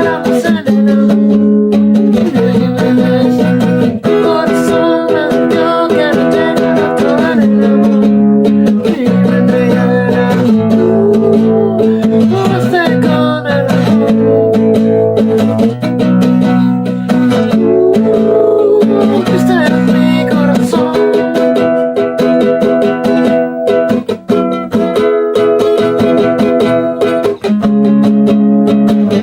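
Acoustic stringed instrument strummed in a steady chord progression, the chords changing every second or two.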